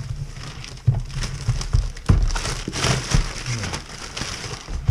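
Plastic packaging crinkling and crackling as a new RC plane's box is handled and unwrapped, with scattered small clicks and knocks.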